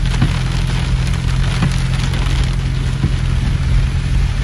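Heavy rain hitting a car's windshield and roof, heard from inside the cabin: a steady hiss with scattered sharp drop ticks over a constant low rumble.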